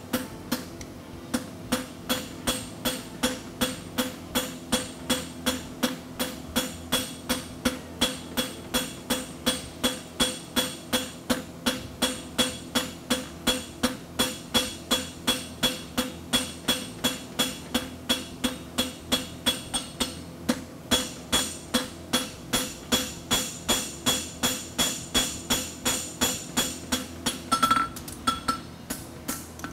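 Hand hammer striking a red-hot steel horseshoe on an anvil in a steady rhythm of about three blows a second, each blow with a bright metallic ring from the anvil. The farrier is shaping the shoe at the base of its toe clip.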